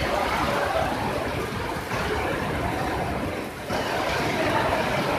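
Storm wind and wind-driven rain beating against a glass building front, a steady dense rushing noise that dips briefly about three and a half seconds in.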